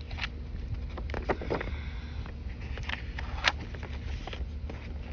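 Soft rustles and taps of a hardcover picture book being handled and its cover opened to the title page, with a cluster of paper rustles about a second in and short scrapes near three seconds. A steady low rumble runs underneath.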